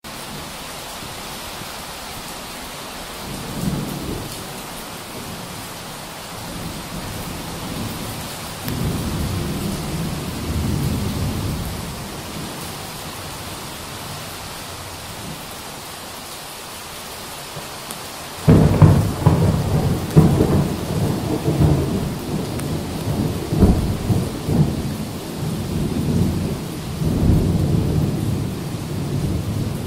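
Thunderstorm with steady rain hiss. Low thunder rolls a few seconds in and again around nine seconds in, then a sudden loud thunderclap just past halfway rumbles on in repeated rolls.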